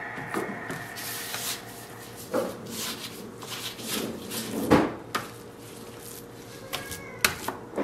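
Raw prime rib roast being handled and turned on a cutting board with gloved hands: scattered soft knocks and thumps, the loudest about five seconds in.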